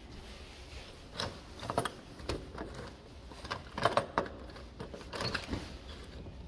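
Door knob and latch of a glass-paned exterior door rattling and clicking as it is unlatched and swung open, a handful of short knocks and clicks, the loudest cluster about four seconds in.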